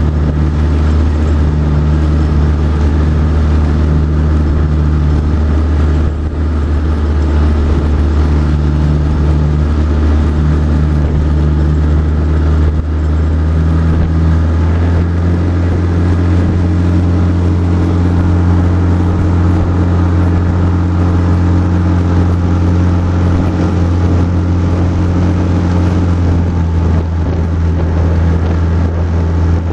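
Small motorboat's engine running steadily under way, a loud, deep, even drone; its note shifts slightly about halfway through.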